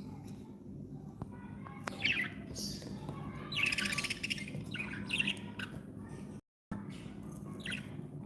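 Budgerigars chirping and chattering: short high calls and a rapid, pulsed warble a few seconds in, over a steady low background hum. The sound cuts out completely for a moment about two-thirds of the way through.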